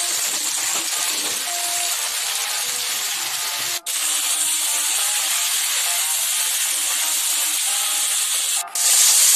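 Vegetables and fish heads sizzling in hot mustard oil in a kadai as they are stirred and sautéed with spices. A steady sizzle that breaks off for an instant twice and is louder over the last half second.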